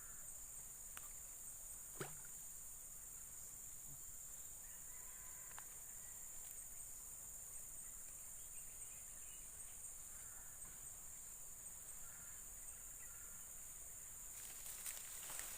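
Faint, steady high-pitched chorus of insects, with a single sharp click about two seconds in and a few soft clicks and rustles near the end.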